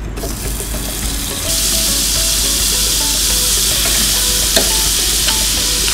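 Butter sizzling as it hits a hot wok, the hiss jumping up about a second and a half in and then holding steady. A spatula working in the pan gives a couple of light clicks near the end.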